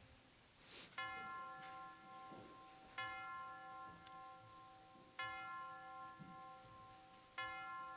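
A single bell tolling slowly: four strokes about two seconds apart, each struck sharply and ringing on as it fades.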